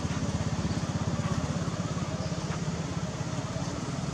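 An engine idling steadily with a fast, even pulse.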